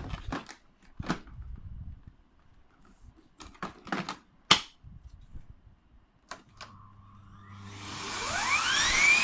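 A few scattered sharp clicks and knocks as the vacuum cleaner is handled. Then, about two-thirds of the way in, the Electrolux ZAP9940 vacuum cleaner's motor switches on and spins up with a rising whine that levels off near the end.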